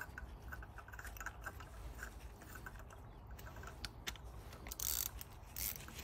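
Metal hand tools being handled in the engine bay: scattered small clicks and light metallic rattles, with a couple of louder short scrapes about five seconds in.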